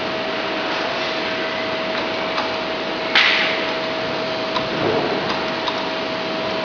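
Hot foil stamping machine running with a steady hum and a constant whine, with a short burst of hiss about three seconds in. A few light knocks as the plastic crate is handled.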